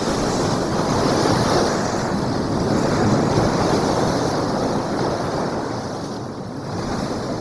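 Rough open-sea waves splashing and breaking into spray, a steady rushing that eases slightly near the end.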